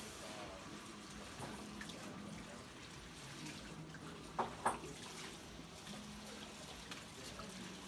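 Water running and splashing into a salon shampoo basin as hair is rinsed, with two short sharp knocks close together about halfway through.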